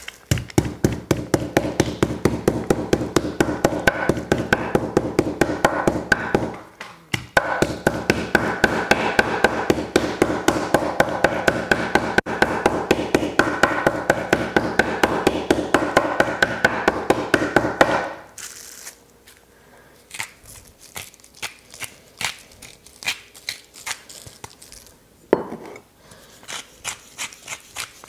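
Metal meat mallet with a toothed face pounding duck breast through plastic wrap on a wooden cutting board: rapid, even strikes, about four a second, with a short break about seven seconds in, stopping about eighteen seconds in. Near the end a pepper mill grinds.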